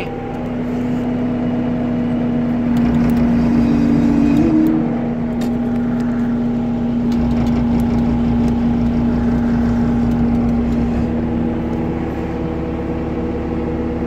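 CAT 299D compact track loader's diesel engine running steadily, heard from inside the cab, with a strong steady hum and a few light clicks. Its low note shifts a few times, and a second steady tone joins about eleven seconds in and holds.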